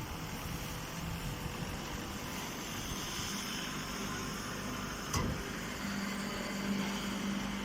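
Pine straw baling machine running with a steady mechanical din, a sharp click about five seconds in, and a low steady hum setting in shortly after.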